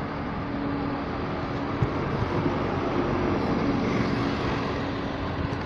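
City street traffic noise with a vehicle engine running at a steady pitch.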